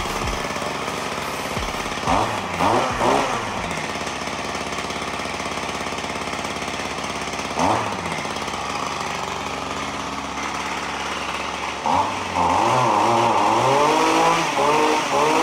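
RedMax stick edger's small two-stroke engine running at idle, blipped up in revs a few times, then held at higher revs with the pitch rising and falling near the end. The idle is set a little low for the load of the straight shaft, as the owner judges.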